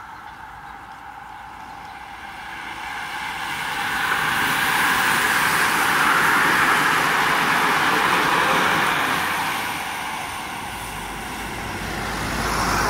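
A bunch of road bikes passing close by: a whoosh of tyres and freewheels that builds, peaks and fades away, then swells again near the end as more riders pass.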